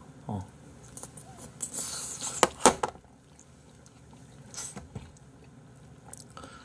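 A person chewing a big mouthful of raw salmon close to the microphone, with wet mouth sounds. There is a short murmur about a third of a second in, and a few sharp clicks about two and a half seconds in, the loudest moment.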